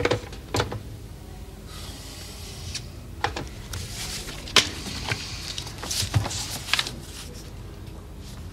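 Telephone handset set down on its cradle with a knock, then scattered light knocks and paper rustling as papers and a book are handled on a desk.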